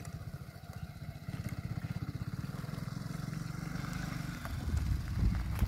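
BMW motorcycle engine running as the bike rides off-road over dirt, a fast low pulsing that gets louder about a second in. Heavier low rumbling and a knock come near the end.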